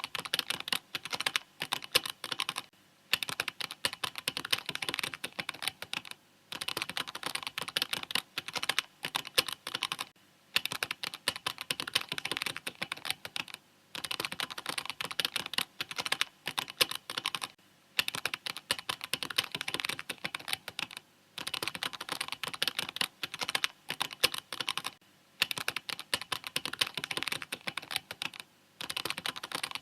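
Mechanical keyboard typing: fast, dense key clicks in runs of a few seconds, broken by brief pauses about every three to four seconds.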